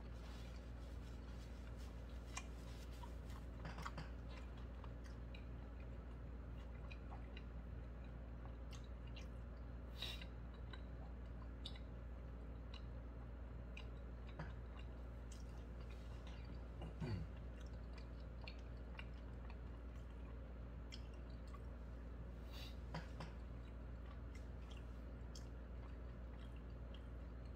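A man chewing a mouthful of hamburger: faint, scattered wet clicks and smacks of eating over a steady low hum in the room, with one brief louder low sound about 17 seconds in.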